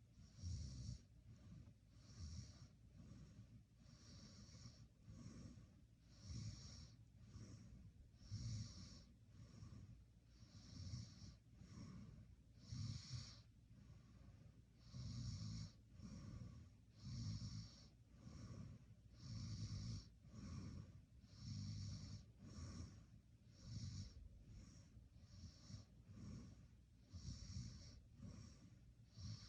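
A sleeping person snoring faintly, the breaths coming in a steady rhythm about every second or two.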